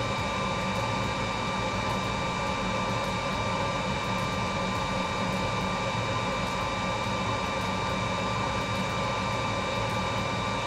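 Ventilation fan running steadily: an even hiss with a low hum and a few steady high whining tones.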